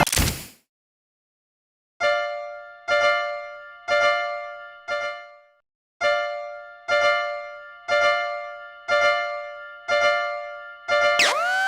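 Cartoon level-crossing warning bell: one bright ding, struck about once a second and fading after each strike. It starts about two seconds in, rings ten times with a short break after the fourth, and near the end a new tone slides upward and holds.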